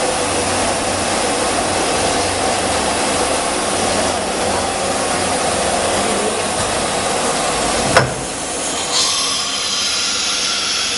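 ATC CNC wood router running and routing a wood panel: a loud, steady machine noise with a held whine. About eight seconds in a single sharp click cuts it off, and about a second later a hiss of air starts as the automatic tool changer changes tools.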